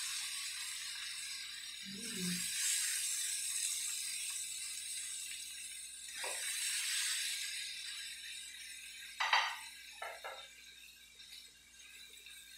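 A metal spatula scrapes through stir-fried string beans in a steel wok while the hot pan still sizzles softly, the beans being scooped out onto a plate. The scraping comes in a few waves, then about three sharp knocks of the spatula against the wok or plate come near the end.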